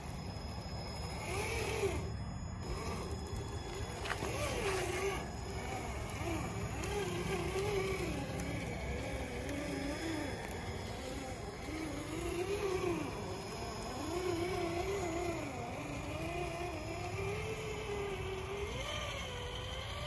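Traxxas TRX-4 Bronco RC crawler's electric motor and gear train whining, the pitch rising and falling as the throttle is worked, over a steady low noise.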